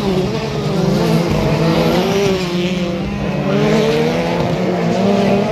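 Several autocross race cars' engines running hard on the track, their notes rising and falling as they rev and shift, with more than one car heard at once.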